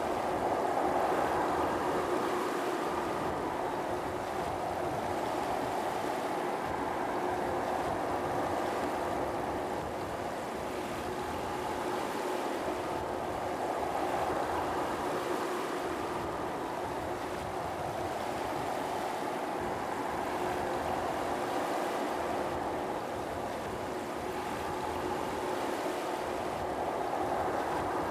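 Jet airliner engines running steadily at low power, a constant hum with a steady tone held under it and no rise or fall in level.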